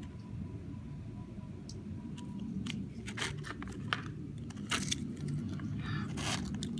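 Folded paper leaflet rustling and crinkling as it is handled and unfolded, with scattered short crackles, busiest in the second half.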